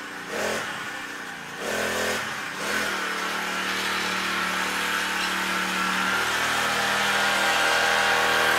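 Motor of a ride-on motorized cooler scooter running steadily, growing gradually louder.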